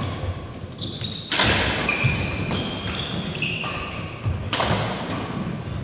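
Badminton rally in a large hall: two loud, sharp racket hits on the shuttlecock about a second and a half in and again about four and a half seconds in, with many short high squeaks of court shoes and the thud of feet on the wooden floor between them.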